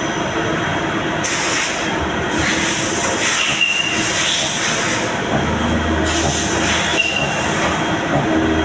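CNC machine running: a steady mechanical noise with stretches of louder hissing, a couple of brief high tones and, from about the middle, a low hum that comes and goes.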